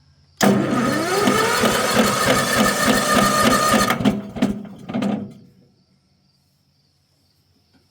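Mower engine being cranked by its electric starter for about three and a half seconds: a whine that rises as it spins up, with regular chugging of the compression strokes, then two short bursts of cranking. The engine fails to fire.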